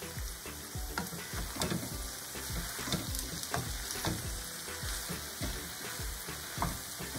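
Diced green papaya sizzling in a non-stick frying pan while a wooden spatula stirs it, with repeated soft scrapes and knocks of the spatula against the pan.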